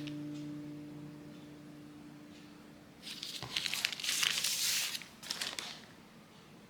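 The last guitar chord of the background music dies away. About three seconds in come several seconds of crackly rustling noises, then they stop.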